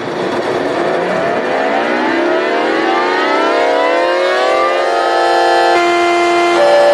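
Japanese air raid siren winding up, its tone rising in pitch over about five seconds, then holding steady and stepping up in pitch near the end.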